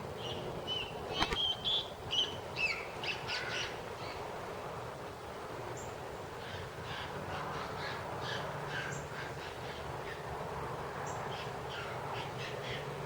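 Birds calling in many short, harsh calls, thickest in the first few seconds and again near the end, over a steady background rush.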